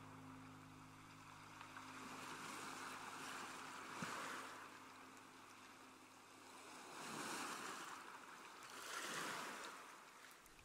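Faint ocean surf: waves wash in and swell about three times, a few seconds apart. The last held notes of a fading music track sit underneath.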